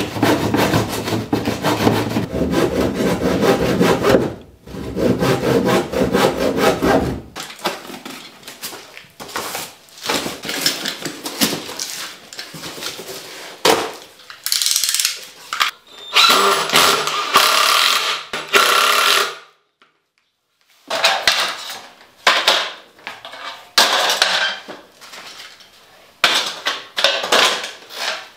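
Handsaw cutting wood with quick repeated strokes for about the first seven seconds. Later comes the rustle of cardboard and plastic packaging being opened, then scattered knocks and clatters of metal skylight flashing pieces being handled.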